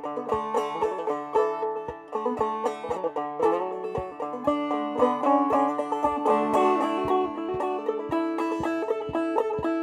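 Five-string banjo played clawhammer style: an old-time tune picked with a steady rhythm of sharp plucked notes and ringing strings.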